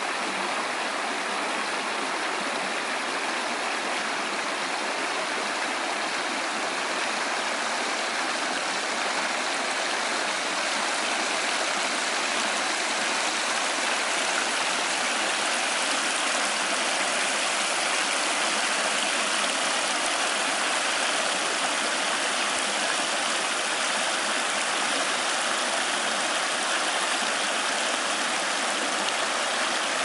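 Shallow stream running over rocks in a small white-water rapid: a steady rush of water, a little louder after about ten seconds.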